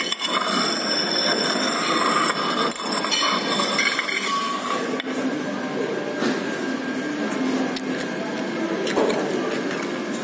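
Restaurant dining-room noise: a steady din with scattered clinks and knocks of dishes and cutlery.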